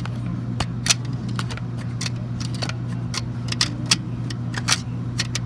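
Sharp metallic clicks and rattles of tools and equipment being handled, about a dozen irregular clicks, over a steady low hum.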